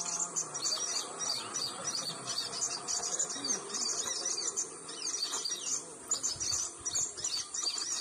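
Small birds chirping and twittering in rapid, high, continuous bursts, over a steady high buzz of insects.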